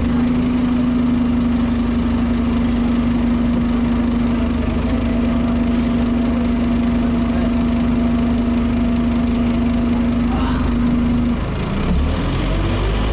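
Scania OmniCity N230UD double-decker bus heard from inside the passenger saloon: its five-cylinder diesel and driveline run with a steady drone over a low rumble. About eleven seconds in, the drone breaks off and the engine note shifts up and down as the engine speed changes.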